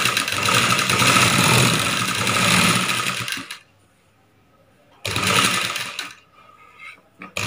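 Sewing machine stitching through blouse fabric. It runs for about three and a half seconds, stops, then runs again briefly about five seconds in.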